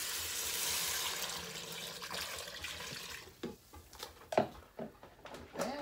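Chicken broth pouring from a plastic container into the Instant Pot's steel inner pot, a steady splashing pour that tapers off about three seconds in. A few sharp knocks follow.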